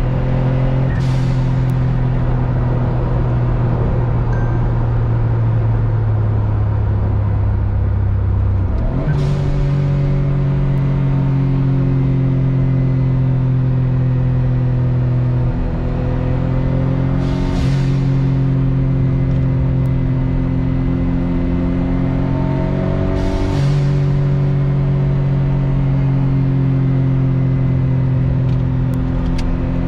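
Autozam AZ-1's turbocharged F6A three-cylinder engine, breathing through an ORIGINALITY catalyst downpipe and dual-tip muffler, droning deep and steady while driving. Its pitch steps up about nine seconds in, drops near sixteen seconds and rises again near twenty-four, with a brief high hiss at several of these changes.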